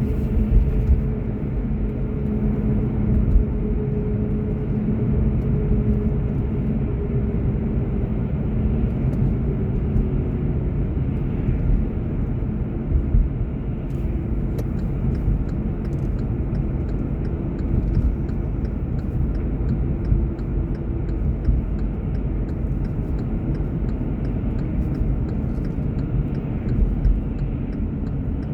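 Inside a moving car: steady engine and tyre rumble, with an engine tone that drops gradually in pitch partway through. Faint, evenly spaced ticks come in about halfway.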